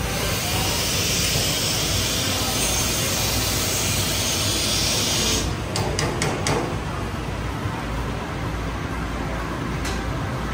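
A steady hiss for about five seconds that stops abruptly, followed by a few sharp clicks, over a constant low rumble.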